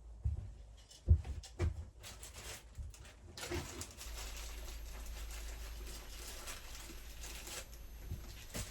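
Handling sounds from taking apart an electric melting furnace. A few light knocks come first, then about four seconds of scraping and rubbing, and another knock near the end.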